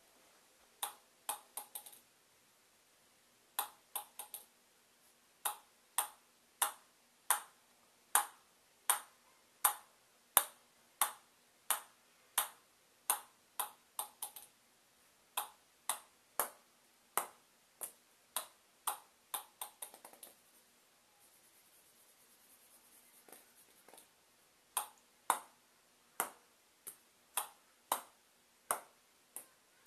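Table tennis ball bounced again and again on a paddle faced with DHS Hurricane 3 Neo rubber, a bounce test of the rubber. Sharp, evenly spaced ball-on-rubber clicks, about one and a half a second. The clicks stop for a few seconds about two-thirds of the way through, then start again.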